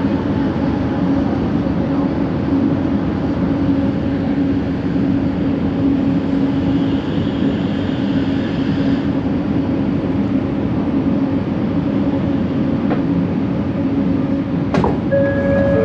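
Linear induction motor noise from a Bombardier Innovia ART 200 metro train, a steady distorted hum as it slows to a stop at a station. Near the end a click is followed by the first notes of a door chime.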